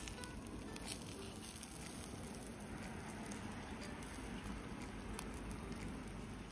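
Slices of wild boar meat sizzling over a charcoal fire on a wire-mesh grill, with scattered crackles and pops.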